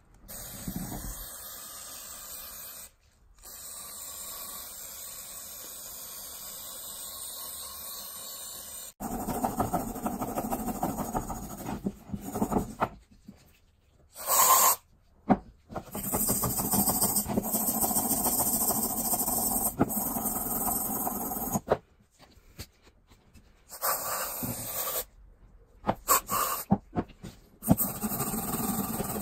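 A twisted-wire bottle brush scrubbed back and forth inside the rusty bore of a small screw jack's body, a rasping, scratchy rubbing that stops and starts several times. The first third is a steadier, even hiss.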